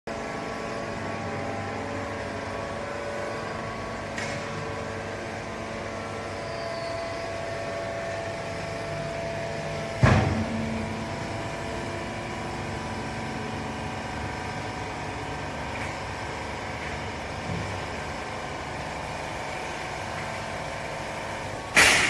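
Vertical hydraulic baler's electric motor and hydraulic pump running steadily, a hum of several tones, while the ram works on a load of waste cotton. A sharp loud clank sounds about ten seconds in and another near the end.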